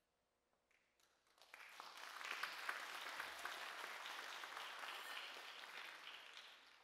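Audience applauding: the clapping starts about a second and a half in after a moment of near silence, swells, then tapers off near the end.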